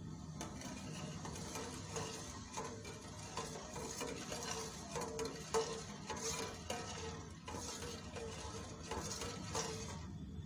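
Metal spoon stirring and scraping against a metal pot of simmering coconut milk, in repeated uneven strokes that stop shortly before the end, while the sugar and salt dissolve.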